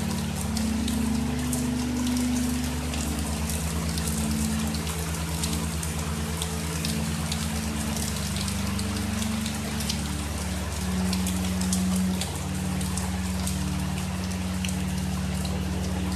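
Steady thunderstorm rain falling, with many individual drops ticking sharply on nearby surfaces, over a low drone whose pitch shifts now and then.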